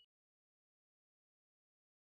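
Silence: the audio track is empty.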